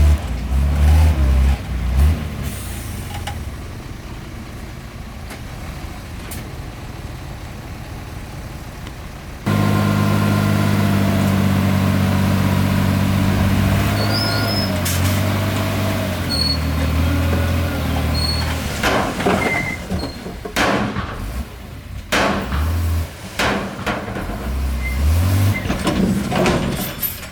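Heavy diesel engines of dump trucks and a bulldozer running. A louder engine drone comes in abruptly about ten seconds in, and a series of short, sharp hisses or knocks sounds over the shifting engine note in the second half.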